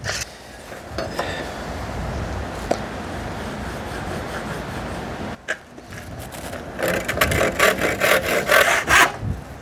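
Handsaw cutting across a timber door-stop batten, with quick, even strokes about four a second in the last few seconds. Before that, a few seconds of steady rubbing noise.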